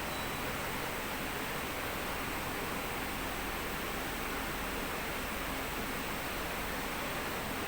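Acson ceiling-suspended split air conditioner blowing air: a steady, even hiss of airflow.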